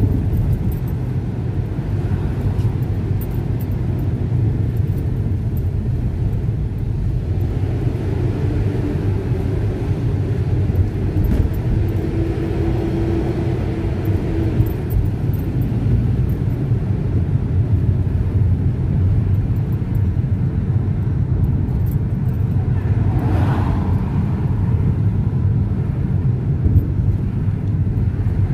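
Steady low rumble of a car driving along a city street, heard from inside the cabin: engine and tyre noise.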